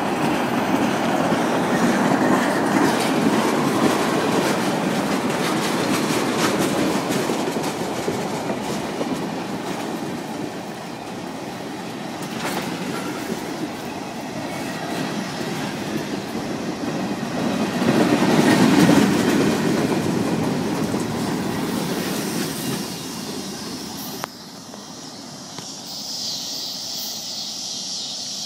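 Freight train of tank cars rolling past close by: the steady rumble and clatter of steel wheels over the rail joints, swelling louder a couple of times. The noise drops off sharply near the end as the last car passes, leaving a fainter high hiss.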